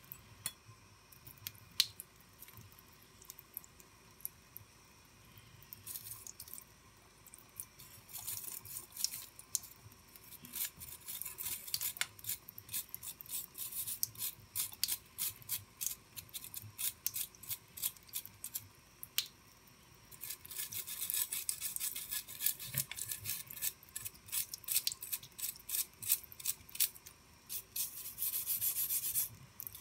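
Scrubbing of a rusty steel knife blade to strip the rust: quick back-and-forth rubbing strokes in runs, with short pauses between them.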